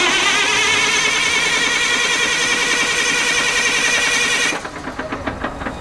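Starter motor cranking a Perkins 2806 diesel generator engine: a high whine that wavers in pitch. It stops suddenly about four and a half seconds in without the engine catching, a failed start attempt.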